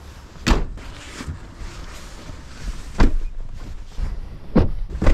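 Car doors being shut: several sharp thuds, the first about half a second in and the rest in the second half.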